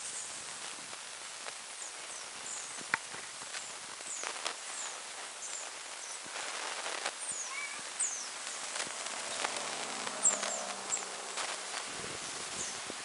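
Rustling and light scratching of banded mongooses foraging through dry grass, with scattered clicks and many short, high chirps throughout.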